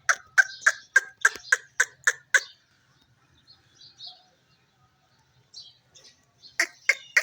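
Parrot giving a quick run of short, sharp calls, about three or four a second, that stops after about two and a half seconds; after a pause another run of calls starts near the end.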